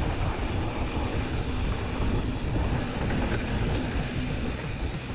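Giant Trance 3 29er mountain bike rolling fast down a dirt singletrack: a steady rough rumble of knobby tyres on dirt and rattling of the bike, with wind noise on the camera microphone.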